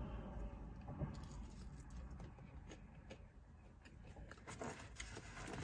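Quiet eating and food-handling sounds: a few soft clicks and rustles as fries are picked up and eaten from a takeout container, over a low steady hum.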